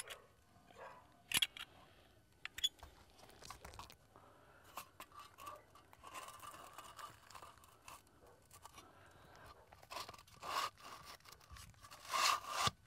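Scattered scrapes, clicks and crunches as a tubular skylight's flashing is handled and set down onto gritty asphalt shingles, with a few louder scrapes about a second and a half in, near ten seconds and near the end.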